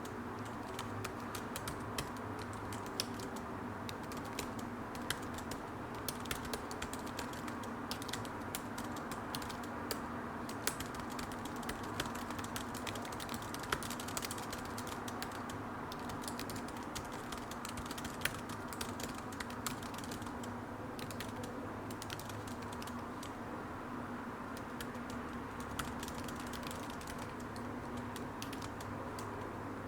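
Computer keyboard typing: a fast, irregular run of keystroke clicks over a steady low hum.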